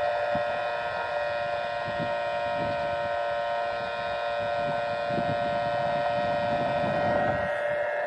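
Steady whine of an electric RC plane's brushless motor and pusher propeller in flight, an even tone with overtones. Low gusts of wind buffet the microphone.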